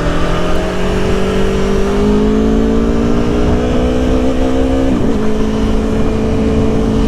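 Aprilia Tuono motorcycle engine pulling away under steady acceleration, its pitch rising gradually, then an upshift about five seconds in, after which it runs at a steady speed.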